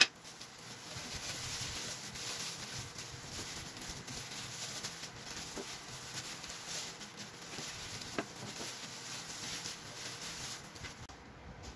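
Disposable plastic gloves rustling and crinkling as hands rub ground pepper into a raw whole chicken in a glass bowl.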